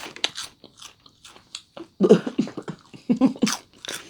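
A person chewing and crunching a crisp snack with the mouth, in a quick run of crackly bites, loudest in two bunches about halfway through and near the end.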